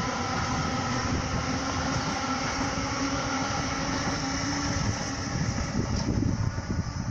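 GWR Class 800 Intercity Express Train passing close by: a steady rush of wheels and running gear with a faint hum through it, swelling louder near the end.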